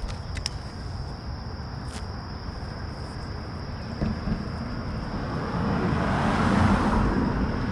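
A car passing on the road, its noise growing to a peak about six and a half seconds in and then easing off, over a steady background hum of traffic.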